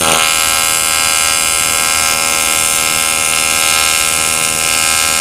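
AC TIG welding arc on aluminium from a Topgun 215E AC/DC welder: a steady buzz with hiss that starts abruptly as the arc strikes.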